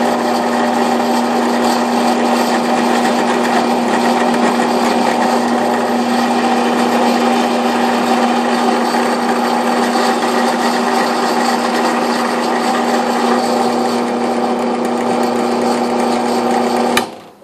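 Central Machinery 12-speed drill press running steadily with its motor hum, an end mill bit spinning against soft aluminum and wobbling as soon as it touches the work, a fault the owner cannot explain. The sound cuts off suddenly near the end.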